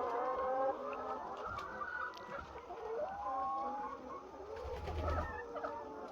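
A large flock of laying hens clucking and calling all at once, many overlapping voices, with a brief low rumble about five seconds in.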